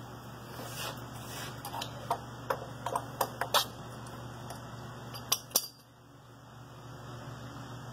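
A steel bottle jack clinking and knocking against the steel plates of a homemade truss-plate press as it is handled. A run of light clicks over the first few seconds, then two sharper knocks about five and a half seconds in.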